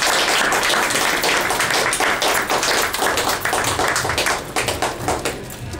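Audience applauding, many hands clapping together, the clapping thinning out and getting quieter near the end.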